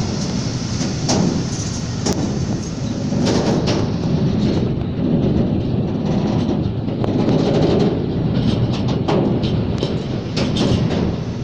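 Train rolling along the track: a steady rumble with irregular sharp clicks of wheels passing over rail joints.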